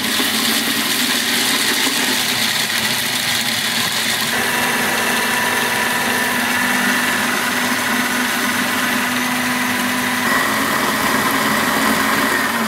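Kenwood food processor motor running at full speed, its blade grinding roasted peanuts and salt into coarse peanut butter. A loud, steady whir whose tone shifts slightly about four seconds in and again about ten seconds in.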